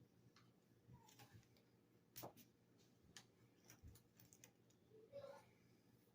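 Faint, scattered light clicks and taps of the vacuum's plastic parts being handled, about a dozen spread over several seconds, the loudest a little past two seconds in.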